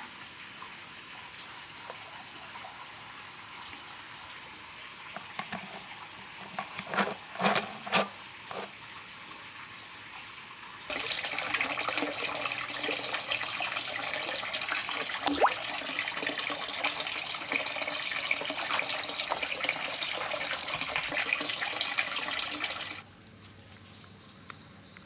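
A few knocks and splashes of liquid in a big glass jug of fruit mash, then a louder steady rush of running water that cuts off suddenly near the end.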